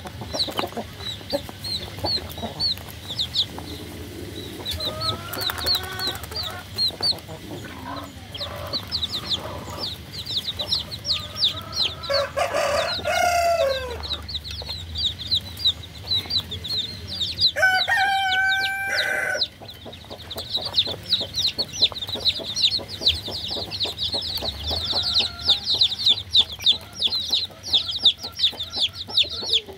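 Baby chicks peeping constantly in a steady stream of short, high-pitched chirps that grow denser in the last third. Two lower, longer chicken calls break in, about 12 seconds in and again about 18 seconds in.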